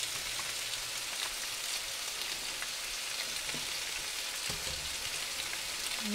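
Cornstarch-coated chicken pieces frying in a skillet of hot oil, a steady sizzle with a few faint clicks.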